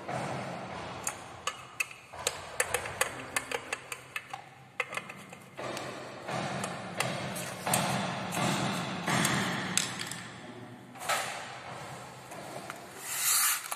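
Small screws and a screwdriver handled and worked into a ceiling fan's motor housing. First comes a quick run of sharp metallic clicks and taps, then stretches of scraping as the screwdriver turns screws in.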